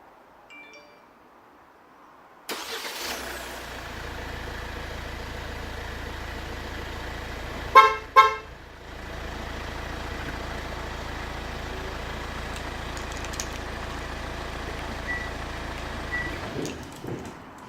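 A Hyundai Santa Fe's engine starts about two and a half seconds in by an aftermarket remote-start system and idles steadily. The car horn gives two short toots around eight seconds in. The engine shuts off near the end, with a few faint short beeps.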